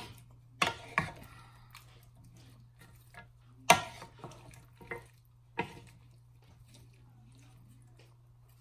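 A cooking utensil knocking against a pan as food is stirred and mixed, giving a few sharp clicks, the loudest about three and a half seconds in, over a steady low hum.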